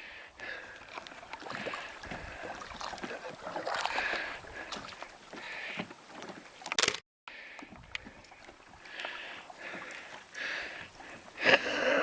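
Paddle strokes in lake water: a swish and splash recurring about every second and a half. A sharp click and a brief dropout come about seven seconds in.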